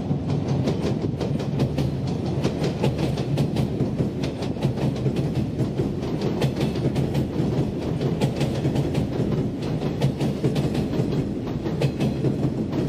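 Electric train running on rails with a low, steady rumble and a continuous run of wheel clacks over the rail joints.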